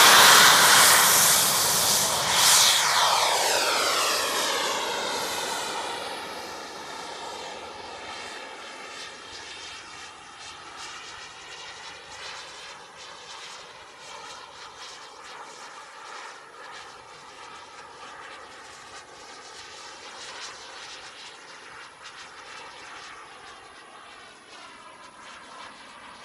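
JetCat 160 model jet turbine of an RC jet at take-off power, loud at first as the jet runs down the runway, then fading over several seconds to a steady, distant jet noise with a wavering tone as it climbs away.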